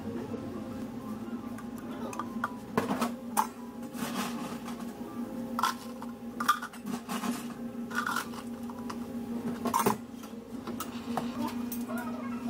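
Ice cubes scooped with a stainless steel ice scoop and tipped into clear plastic cups, clattering in a series of clinks and rattles over a steady low hum.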